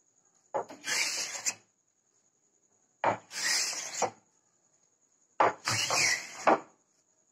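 Wooden Krenov-style smoothing plane making three passes along a board, each about a second long: a sharp knock as the plane meets the wood, then the rasping swish of the blade shearing off a shaving. A faint steady high whine sits underneath.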